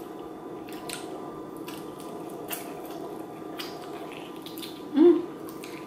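Close-miked wet chewing and lip smacking of sauced chicken wings being eaten, with scattered short smacks and clicks. A brief 'mm' comes about five seconds in.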